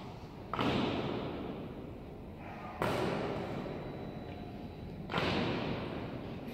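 Honor guard drill: three sharp strikes on a hard floor about two and a half seconds apart, each echoing on through a large hall.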